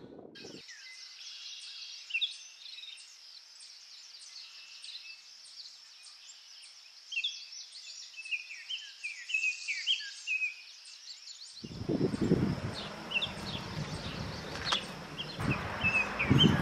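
Small birds chirping, with a faint high ticking about two or three times a second. From about twelve seconds in there is louder rustling of plants and sharp snips of scissors as garlic and scallion stalks are cut.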